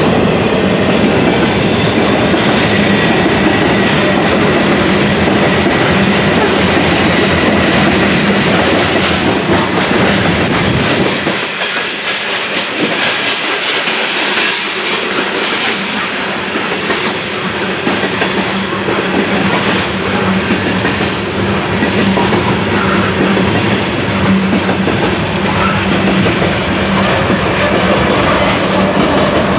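CSX freight train passing close by, its steel wheels clattering over the rail joints as the freight cars roll past. A steady low engine hum builds over the last several seconds as a diesel locomotive in the middle of the train draws level.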